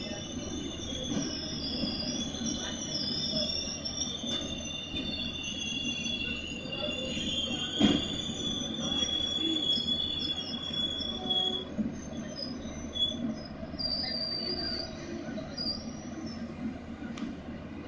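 A moving passenger train's wheels squealing against the rails in wavering high tones over a steady low rumble of the rolling coaches. A single sharp knock comes about eight seconds in.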